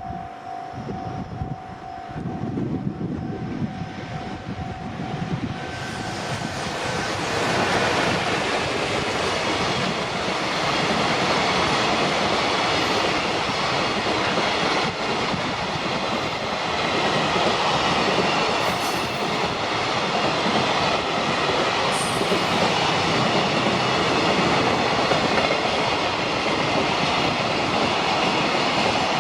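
A level-crossing alarm rings with a steady pulsed tone, then about six seconds in a JR Freight train arrives and passes close by: a long, loud rush of wheels on rail with clattering over the joints, and a couple of brief high squeals from the wheels partway through.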